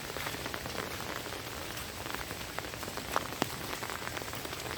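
Steady rain falling, with single drops tapping sharply here and there, a couple of louder taps about three seconds in.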